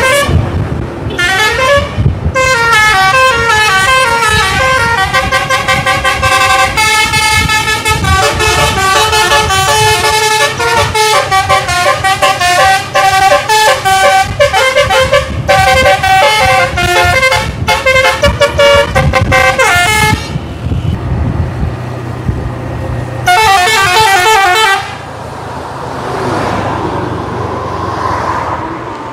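Indonesian bus telolet (basuri) multi-tone musical horn playing long runs of quick, changing notes for about twenty seconds, then one more short burst a few seconds later, over the bus's running diesel engine.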